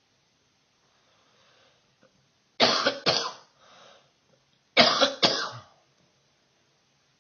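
A person coughing in two bouts about two seconds apart, each bout two quick coughs, with a short inhale between the bouts.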